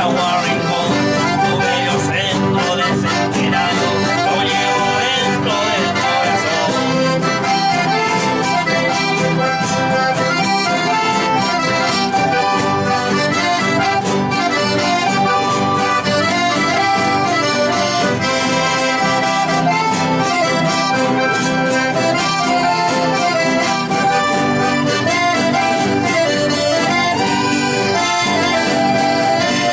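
Accordion playing an Argentine folk tune with guitar accompaniment, a continuous instrumental passage.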